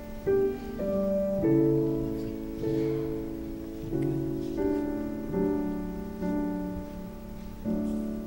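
Piano playing a slow, chordal piece, each chord struck and left to fade before the next.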